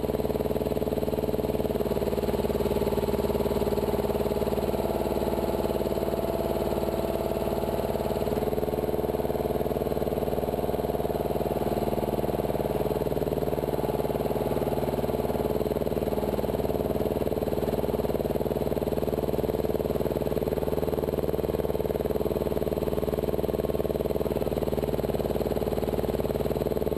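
Engine of a bomb lift truck, used for loading weapons, running steadily: a constant hum with a slight change in tone about two seconds in and again around eight seconds.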